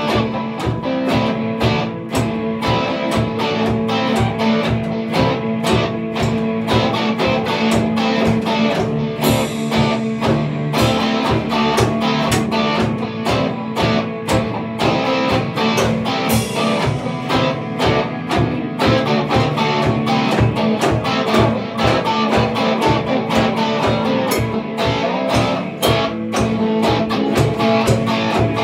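Rock music played live on two electric guitars and a drum kit: guitar chords and riffs over a drum beat, with cymbal crashes a few times.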